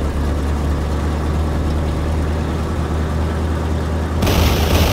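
Cartoon monster-truck engine sound effect: a steady low rumble. About four seconds in, a sudden, louder hissing rush joins it.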